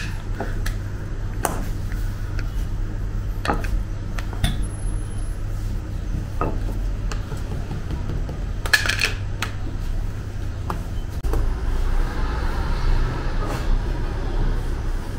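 Scattered light knocks and clatters of hands, a spiked docker roller and a scraper working flatbread dough on a counter, over a steady low hum of the bakery, with a short burst of clatter about nine seconds in.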